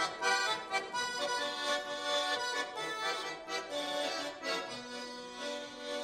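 Button accordion playing an instrumental folk-style melody, an introduction before the singing begins.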